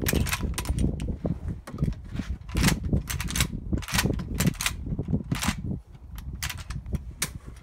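About a dozen sharp cracks and clicks at irregular intervals, over a steady low rumble.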